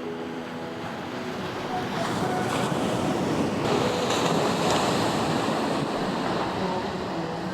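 Sea waves surging onto the shore, the wash swelling about two seconds in and peaking midway before easing. Faint tones of background music fade out near the start.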